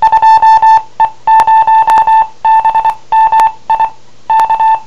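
Yaesu ham radio sending its automatic CW ident: a single-pitched tone keyed on and off in Morse code, short and long beeps in groups. The ident spells DE, then the station's callsign, then the letter K to mark the end of the transmission.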